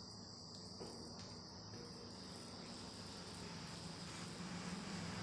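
Quiet room with a steady high-pitched whine and a low hum. Over it come a few faint soft clicks as fingers mix rice and curry on a steel plate.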